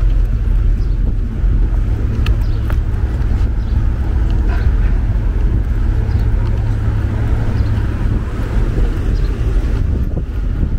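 City street traffic: a steady low rumble of passing vehicles, mixed with wind buffeting the microphone.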